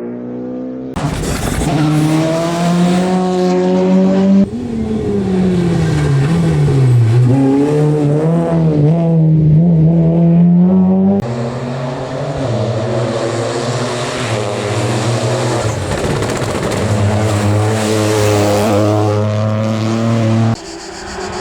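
Rally cars at full throttle on a special stage, engines revving hard through the gears, the pitch dropping as one brakes and rises again as it pulls away; the sound switches abruptly between cars several times.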